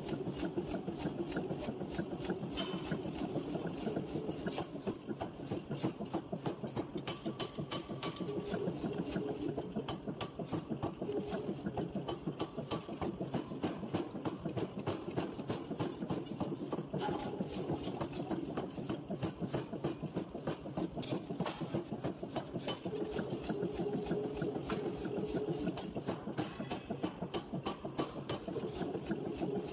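Industrial forging power hammer striking a red-hot steel billet over and over, a quick, unbroken run of heavy blows over the steady running noise of the machine.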